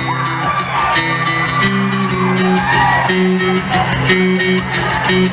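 Live rock band playing an instrumental passage between vocal lines: a bass guitar and electric guitar riff over drums, heard through the concert sound system.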